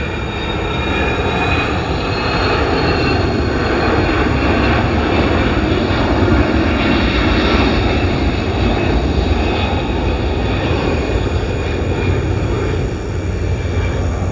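Fixed-wing airplane flying overhead out of sight above the overcast, descending toward a nearby airport: a steady engine drone that swells a little in the middle and eases slightly near the end.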